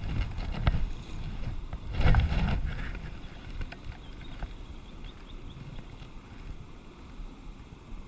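Small stream's water running, with wind rumbling on the microphone; a louder burst about two seconds in, then steadier and quieter.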